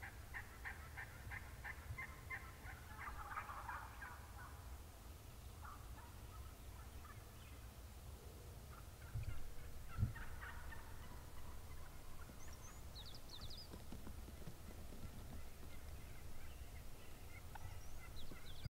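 Wild turkey gobbling: a long rapid rattling gobble over the first four seconds, then fainter calls around ten seconds in. A dull thump about ten seconds in, and a few high chirps a little later.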